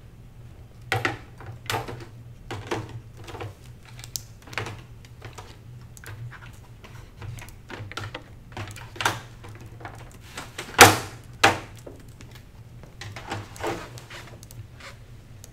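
Irregular knocks, clicks and clatter of a small folding lectern stand being folded up and gear handled on a classroom desk, the loudest thud about eleven seconds in. A steady low hum runs underneath.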